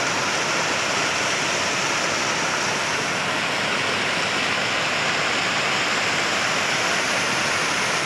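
Small waterfall: white water rushing steadily over rocks.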